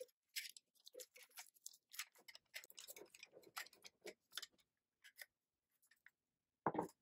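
Aluminium foil crinkling as it is pressed and crimped around the rims of small glass jars, in quick irregular crackles that thin out after about four seconds. Near the end there is a single louder dull knock.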